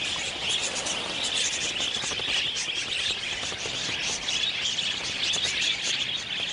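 A large flock of wild budgerigars chattering: a dense, continuous mass of overlapping short chirps and warbles.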